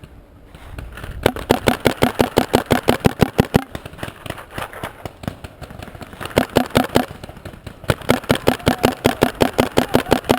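Paintball marker firing in fast, evenly spaced strings of about eight shots a second: three bursts, the first a couple of seconds long, a short one about six seconds in, and a longer one near the end.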